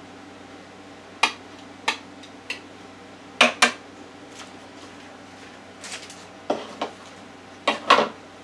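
Kitchen clatter: a scattered series of sharp taps and clinks, several in quick pairs, as a bowl knocks against a Ninja blender's plastic jar while butter goes in and the jar is handled.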